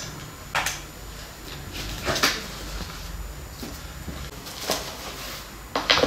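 Papers and file folders being handled on an office desk: four short rustles or shuffles at uneven intervals, over faint room hum.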